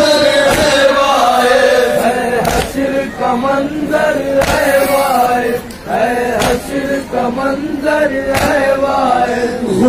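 A group of men chanting a noha, a Muharram lament, in unison into microphones, with sharp chest-beating (matam) slaps about once every two seconds.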